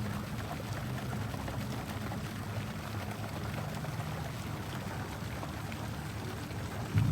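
Water running steadily with a pouring, trickling sound over a low hum. Near the end, a louder sound comes in abruptly.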